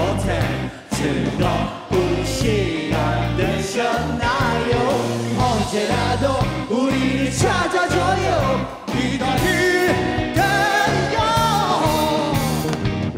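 Rock band playing live with a male lead vocal, over drums with crashing cymbals, and guitars and bass.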